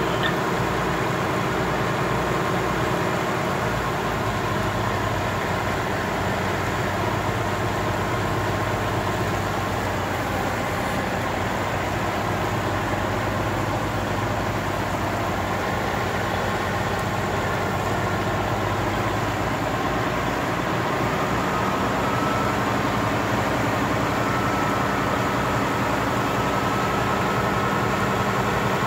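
Fire trucks' diesel engines running steadily at the scene, a constant hum under a hiss. The engine note shifts a few seconds in and again near the end.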